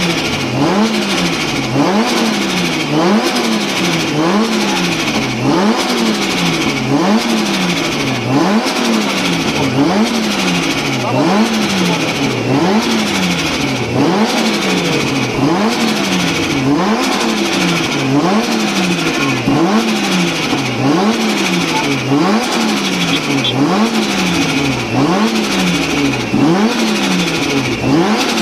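Turbocharged Japanese car engine revved in quick repeated throttle blips, about one every second and a half, its pitch rising and falling each time. Turbo flutter chatters as the throttle snaps shut after each blip.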